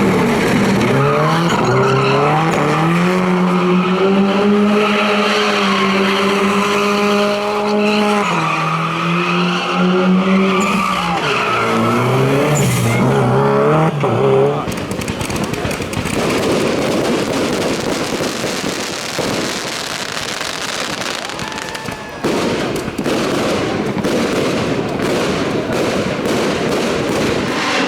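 Rally car engine revving hard, its pitch climbing and dropping through gear changes. About halfway through the engine note gives way to a loud noisy rush with sharp crackles.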